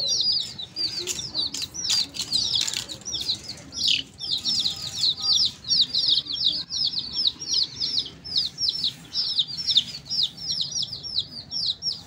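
Several baby chicks peeping nonstop, a rapid overlapping stream of high, downward-slurred peeps.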